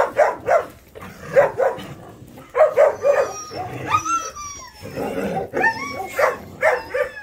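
Several dogs barking in short repeated barks, broken by high wavering yelps and whines about halfway through and again near the end.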